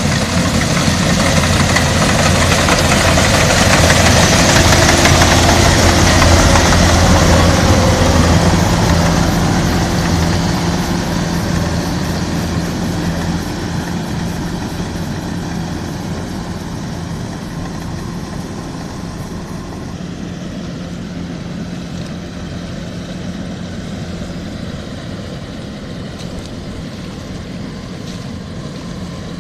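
Rice combine harvester engine running steadily, growing louder for the first several seconds and then slowly fading.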